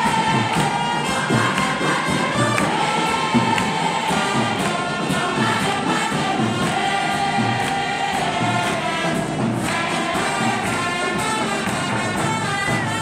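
A choir and congregation singing a church song together over a steady percussion beat.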